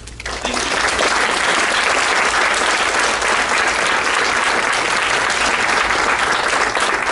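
Audience applauding: many hands clapping together, rising within the first second to a dense, steady ovation.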